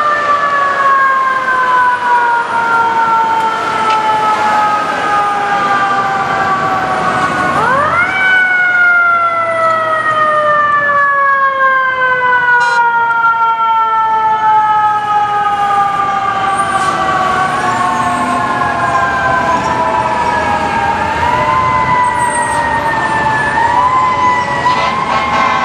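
FDNY fire truck's mechanical siren coasting down in pitch, then winding up sharply about a third of the way in and falling slowly again, with several shorter wind-ups near the end.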